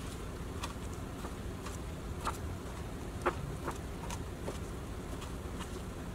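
Scattered light clicks and taps as halved grapes are handled and set down on a marble countertop, over a steady low hum.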